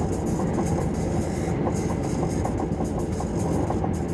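Cabin noise inside an SJ 3000 (X55) electric train running at speed: a steady rumble of wheels and running gear on the track.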